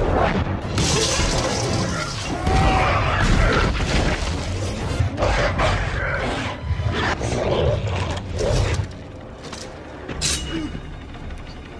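Film battle sound effects: repeated crashes, shattering impacts and booms over a heavy low rumble, with orchestral score underneath. The rumble drops away about nine seconds in, leaving quieter scattered hits.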